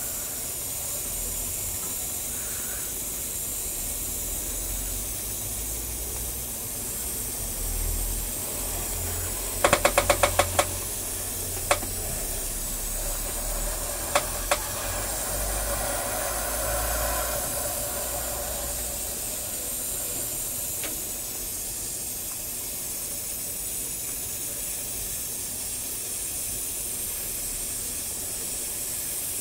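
Airbrush hissing steadily as it sprays paint. About ten seconds in there is a quick run of about seven sharp clicks, then a few single clicks.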